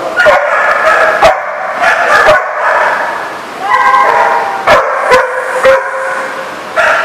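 Dogs play-fighting: a run of yips and whines, broken by several short, sharp sounds.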